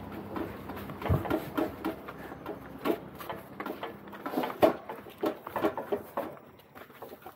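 Footsteps going down concrete steps, with irregular knocks and clinks from the large metal cooking pots and trays being carried.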